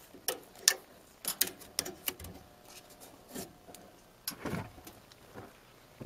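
Irregular clicks and short plastic rattles as a furnace's door safety switch is pressed and handled to bypass it, loudest in the first two seconds and again about four and a half seconds in.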